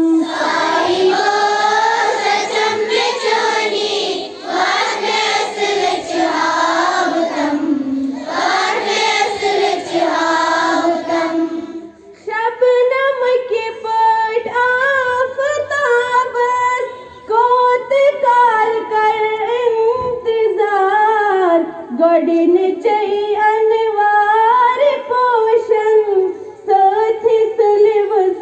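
A group of schoolchildren singing a prayer together in chorus. The singing dips briefly about twelve seconds in, then carries on with the melody standing out more clearly.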